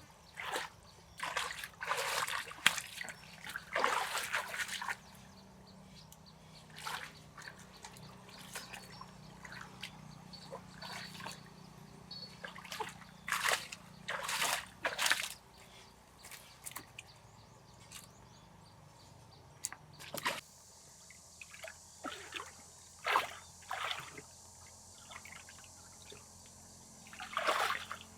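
Water splashing and sloshing in irregular bursts, some loud and some faint, with trickling in between.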